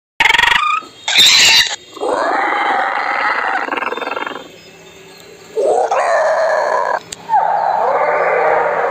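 Creature-style animal calls used as the cry of a cartoon pterodactyl: two short loud bursts near the start, then three long drawn-out pitched calls of one to two and a half seconds each.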